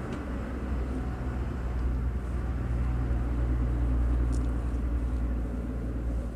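Low background rumble over a steady mains-like hum, swelling gently toward the middle and fading again.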